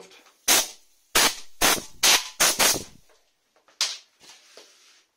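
Compressed air fired in about seven short, loud blasts, most in quick succession and one more a second later, blowing sanding dust off a freshly sanded wooden bowl.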